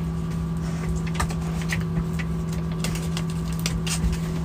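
A steady low mechanical hum runs throughout, with a few light crinkles and taps as a paper sachet of probiotic powder is shaken out into a plastic bowl.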